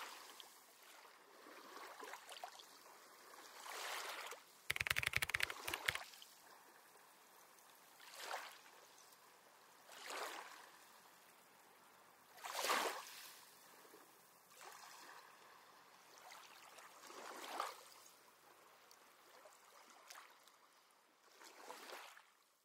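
Water washing in soft swells that rise and fall every two to four seconds, like underwater tank ambience. About five seconds in there is a louder rapid rattling buzz lasting about a second.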